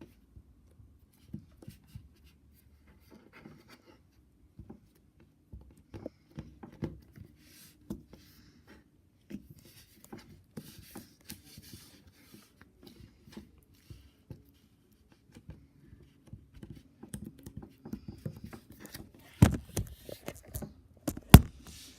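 Slime being poked with a finger: soft, scattered sticky clicks and small pops, busier in the second half, with a few louder sharp clicks near the end.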